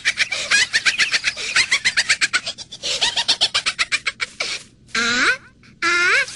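High-pitched, fast gibberish chatter of ZooZoo characters: a rapid run of short chirpy syllables with rising glides, breaking off briefly about four and a half and five and a half seconds in.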